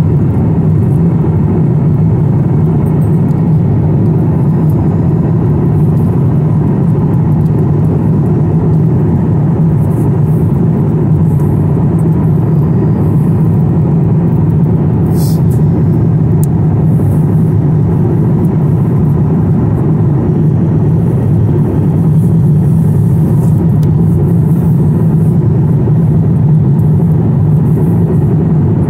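Jet airliner cabin noise at cruise altitude: a steady, low rushing drone that does not change.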